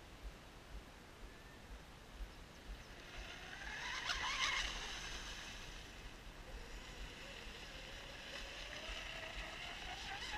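An RC speedboat's brushless electric motor and 48 mm propeller whining as the boat runs across the water. The whine swells to its loudest about four seconds in, then holds steadier and climbs in pitch near the end.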